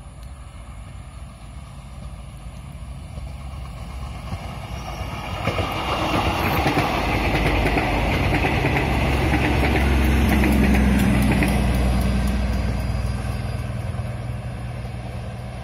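Diesel multiple-unit passenger train passing close by: the engine drones, and the wheels clack rapidly over the rail joints. The sound swells to its loudest about ten seconds in, then fades as the train moves away.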